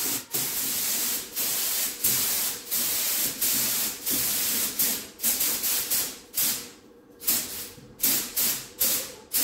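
Compressed-air paint spray gun hissing as paint is sprayed onto a plastic car bumper, in repeated passes with short breaks between them where the trigger is released. From about two thirds in, the bursts are shorter with longer gaps between them.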